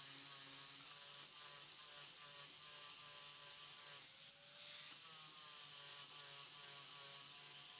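Angle grinder with a flap sanding disc running against a fiberglass hull patch, smoothing the edges of the mat into the existing glass. It is a faint, steady buzzing whine whose pitch dips briefly about four seconds in.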